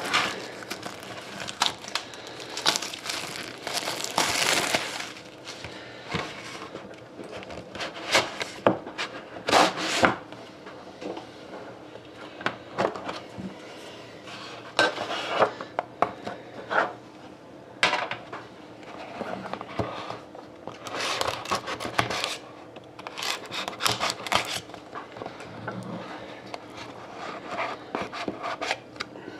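A sealed box of trading cards being opened by hand: cardboard and wrapping rustling and scraping, with scattered light clicks and knocks.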